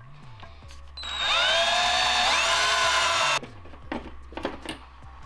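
Cordless drill running for about two seconds, its motor whine rising in pitch partway through, then stopping suddenly. A few light clicks follow near the end.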